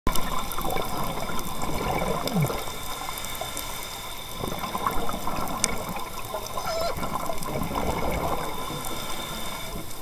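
Underwater bubbling and gurgling from a scuba diver's regulator as exhaled air escapes, swelling and easing with the breaths.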